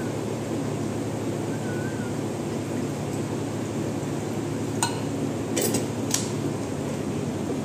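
Paint spray gun and its aluminium paint cup being handled and taken apart for cleaning. There are a few sharp metal clinks a little past halfway, over a steady background hum.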